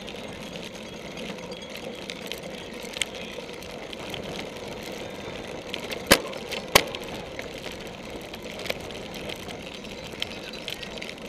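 Steady rolling and drivetrain noise of a cyclocross bike riding over a grass course, with scattered rattling ticks and two sharp knocks about six and seven seconds in.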